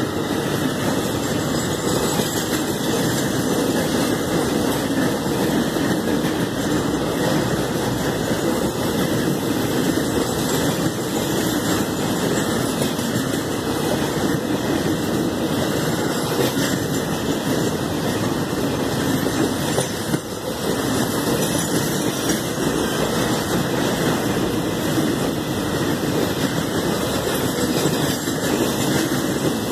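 Container freight wagons rolling past close by: the steady rolling noise of steel wheels on the rails, dipping briefly about two-thirds of the way through.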